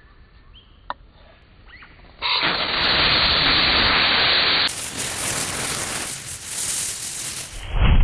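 A single sharp click, then about two seconds in a sudden loud whoosh as a brush pile ignites in a flash of flame, followed by the steady rushing noise of the fire. Near the end a deep whump as a fireball goes up.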